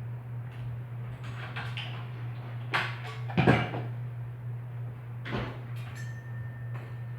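Clunks and scrapes of hand tools and metal bicycle parts being handled during a teardown of a motorized bicycle, a few separate knocks with the loudest about three and a half seconds in, over a steady low hum.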